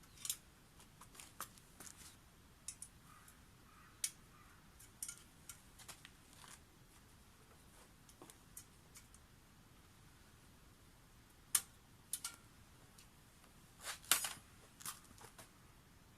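Scattered faint, short clicks and light handling noises at irregular intervals, with a quick cluster of sharper clicks about fourteen seconds in; no engine is running.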